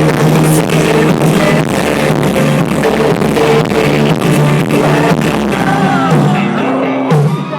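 Live pop-rock band playing loudly with a steady drum beat and guitar, in the closing bars of a song; the playing thins out near the end.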